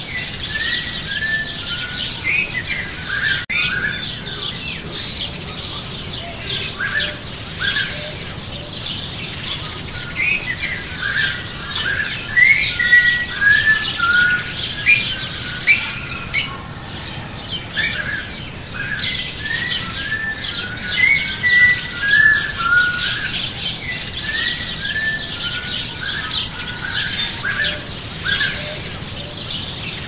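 Small songbirds chirping continuously, with many short, quick calls overlapping one another.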